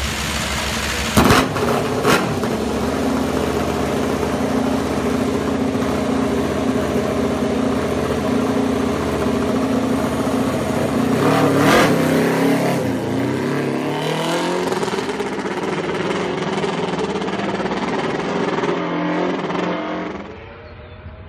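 Aprilia MotoGP bike's V4 racing engine running at a fast warm-up idle, loud and lumpy, with two sharp cracks in the first couple of seconds. About twelve seconds in it revs up, then the pitch falls and wavers as the bike pulls away, and the sound drops off near the end.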